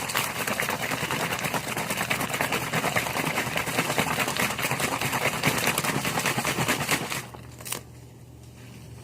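Container of mixed drink shaken hard, a fast continuous rattle that stops suddenly about seven seconds in, followed by a single click.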